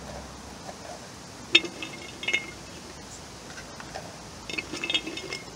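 Light clinks and rattles of dried plant stalks and wine corks being pushed into a painted tin can, in three short bursts: about a second and a half in, at two and a half seconds, and near the end.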